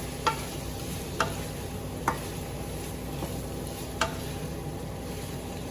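Pork sizzling as it fries in a pan while being stirred, with four sharp knocks of the utensil against the pan.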